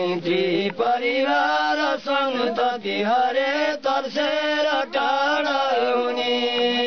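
Two elderly men chanting a Nepali shlok together, unaccompanied, the melody bending from note to note and settling into one long held note near the end.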